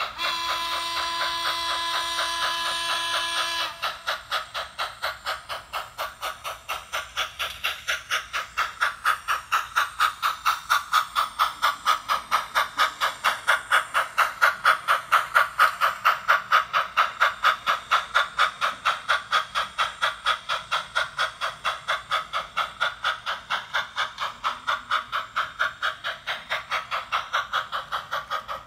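HO scale steam locomotive sound decoder (Soundtraxx Tsunami 2 through a megabass speaker) sounding a steady chorded steam whistle, which cuts off about three and a half seconds in. The exhaust chuff of the 2-8-0 Consolidation follows at about four beats a second as it works a loaded coal train up a grade. The chuffs swell louder toward the middle.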